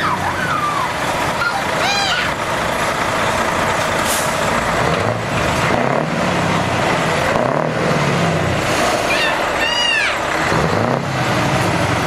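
Heavy truck engines pulling away under hard throttle, led by a Scania 164L's V8 revving with a wavering deep note as it belches black smoke. A burst of air-brake hiss comes about four seconds in.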